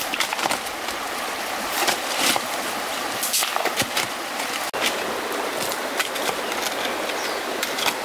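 A steel shovel chopping and scraping into stony soil and gravel in irregular strikes, over the steady rush of a shallow river running over rocks.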